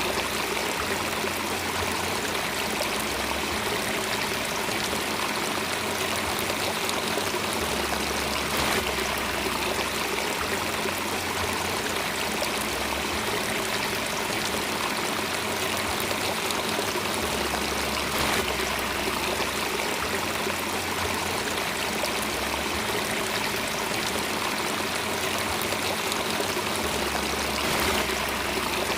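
Water flowing steadily, as of a running stream.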